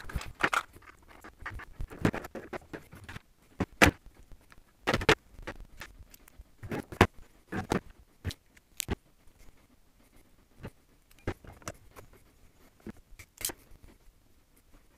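Irregular sharp clicks, taps and short rustles of wire, plastic crimp connectors and hand tools being handled on a tabletop while wiring is stripped, joined and crimped. The clicks come thickest in the first half and thin out later.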